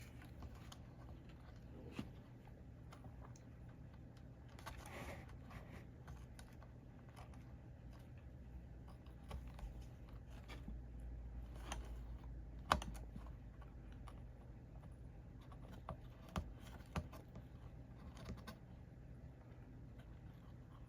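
Faint, scattered light clicks and taps of small hand tools working on a circuit board, with one sharper click about two-thirds of the way through. A brief soft hiss comes about a quarter of the way in, and a steady low hum runs underneath.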